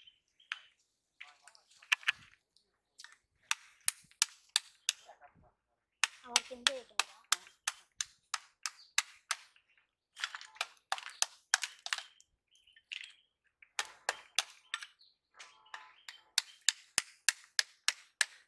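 Knife blade striking and cracking a large freshwater snail shell against a stone: runs of sharp clicks and cracks, several a second, broken by short pauses.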